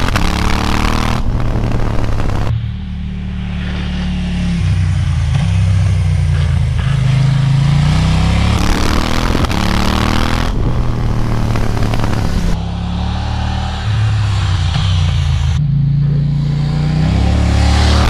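KTM 790 Duke's parallel-twin engine, heard from on the bike, pulling hard up through the revs and easing off the throttle for bends, its pitch climbing and falling several times, with sharp drops about two and a half seconds in and twice more near the end.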